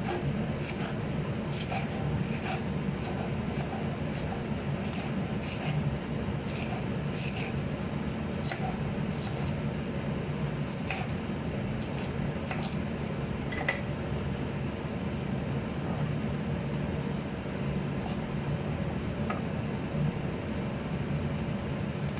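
Kitchen knife slicing through crisp lettuce leaves held in the hand: short, sharp cuts about twice a second, thinning out after about fourteen seconds, over a steady low hum.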